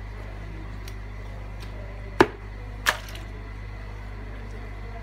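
Two sharp cleaver chops into a horseshoe crab on a thick wooden chopping block, about two seconds in and under a second apart, the first louder. A steady low hum runs underneath.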